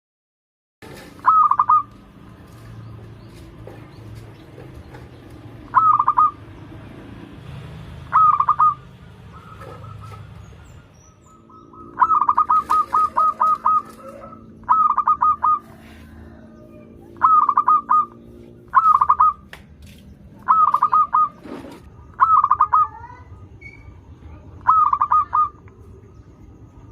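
Zebra dove (perkutut) cooing: short bursts of rapid, trilling coo notes repeated every few seconds, with one longer run about halfway through. A steady low hum runs under the middle part.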